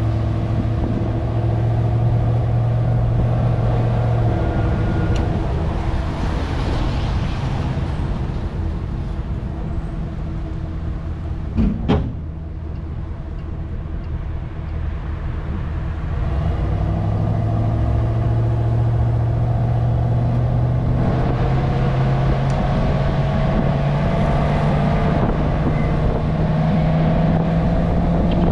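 Tow vehicle's engine and road noise while pulling a boat trailer, a steady hum whose pitch climbs slowly over the last ten seconds as it speeds up. A single sharp knock about twelve seconds in.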